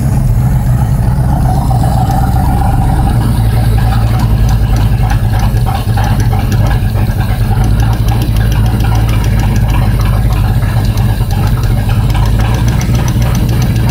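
Ford 460 big-block V8 running at idle just after starting, with a fast rhythmic ticking over the engine note: a noisy lifter on cylinder number 4, which the owner hopes is a collapsed lifter rather than a wiped cam lobe.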